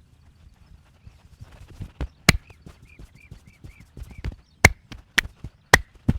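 Sharp strikes of a wooden massage stick on the body. There is one loud hit a couple of seconds in, then four quick hits about half a second apart near the end, with lighter taps between them. A faint, high, repeated chirping comes in after the first loud hit.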